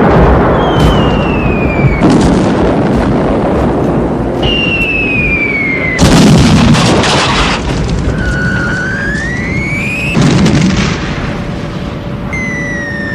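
Aerial bombardment sound effect: bombs whistle down, each ending in a heavy explosion, three blasts about four seconds apart. Most whistles fall in pitch, one rises before its blast, and another whistle begins near the end.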